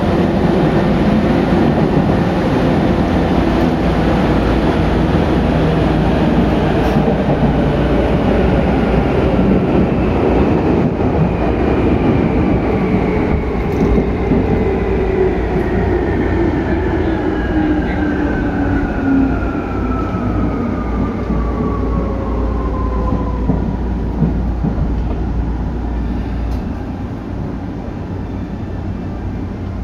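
Tokyu 8500 series train's Hitachi traction motors whining under a steady rumble of wheels on rail in a subway tunnel. The whine falls steadily in pitch over about a dozen seconds as the train slows, then fades out.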